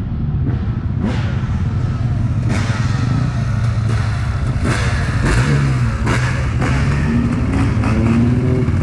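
Motorcycle engine running steadily, revved up briefly about five seconds in and again near the end, with a few sharp clicks.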